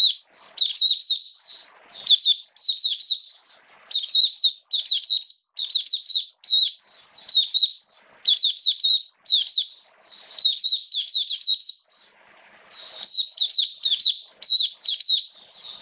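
A caged white-eye singing: fast runs of high, twittering chirps in quick phrases with short gaps, pausing for about a second near twelve seconds in before resuming.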